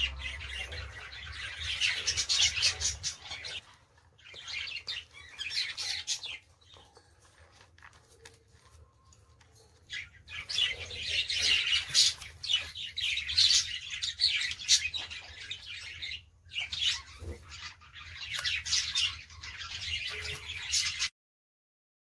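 Birds chirping and chattering in bouts of a few seconds, with short quiet gaps between them.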